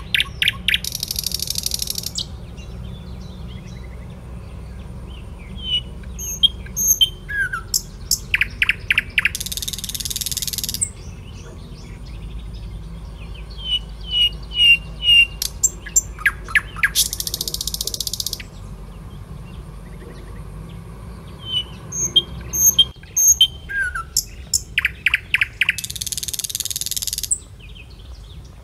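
Birds chirping and calling in a pattern that repeats about every eight seconds. Each round has short high chirps, then a quick run of sharp calls, then about two seconds of high hiss, all over a steady low hum.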